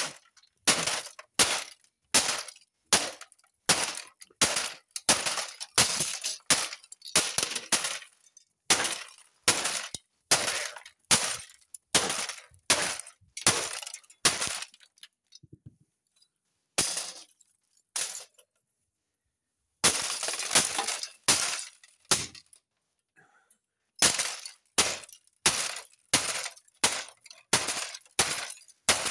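A small hammer beats on an opened-up 2002 Sensory Science Go Video VCR/DVD combo, about two blows a second, cracking and breaking its plastic and metal parts. The blows stop for a second or two past the middle, then start again.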